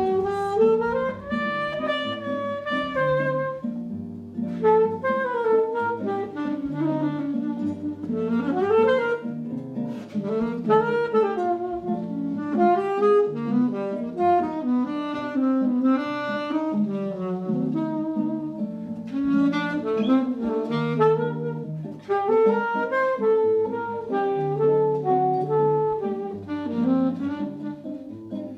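Live bossa nova band playing an instrumental passage: a saxophone carries the melody over guitar and a stepping bass line.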